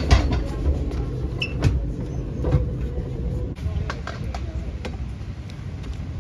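Rumble of a moving commuter train heard from inside the carriage, with scattered knocks and rattles and a faint steady hum. About three and a half seconds in, it cuts off abruptly to a quieter, steady background.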